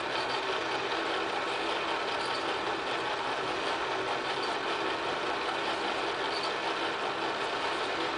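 Film projector running, a steady mechanical noise with no break.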